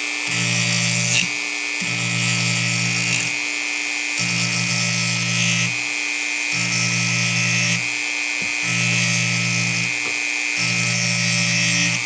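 Dremel rotary tool running steadily with a high whine while its grinding stone sharpens the dull can-opener blade of a Leatherman ARC multi-tool. The stone is pressed to the steel six times, about a second each time, every two seconds, and each pass adds a harsh grinding over the motor.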